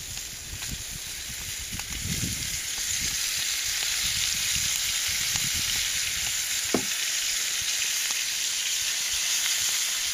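Perch frying in vegetable oil in a frying pan, sizzling steadily and growing louder about two and a half seconds in. A brief knock about two-thirds of the way through.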